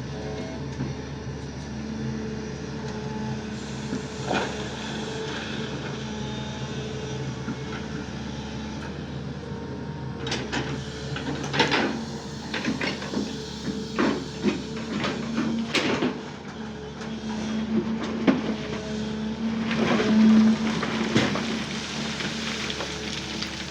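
Sany excavator's diesel engine running steadily, with a string of sharp knocks and clanks from about ten seconds in as the bucket works the ground; the engine grows louder around twenty seconds in.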